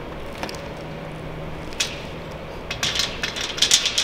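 Bare copper ground wire being handled and worked along a metal solar racking rail: a few sharp clicks, then a quick run of crackling scrapes near the end.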